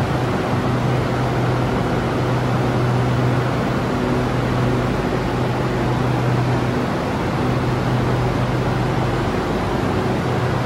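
Steady rush of air and a low electrical hum from a standing SRT Red Line electric train, its air-conditioning and auxiliary equipment running with the doors open. The hum dips briefly now and then.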